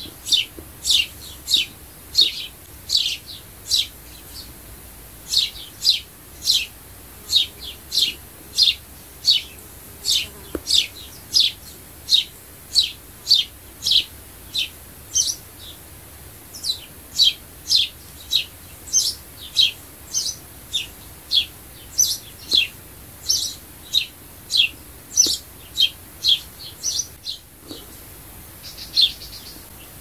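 Sparrow chirping over and over, about two short, sharp chirps a second, each dropping quickly in pitch.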